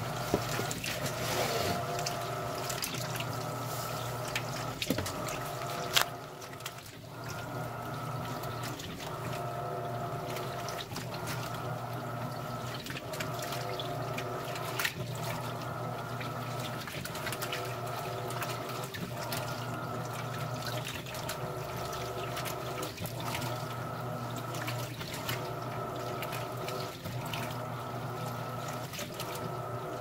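Electrolux top-load washing machine agitating a load of towels in water: a steady motor hum with water sloshing, the agitator reversing direction about every two seconds. There is one sharp click about six seconds in.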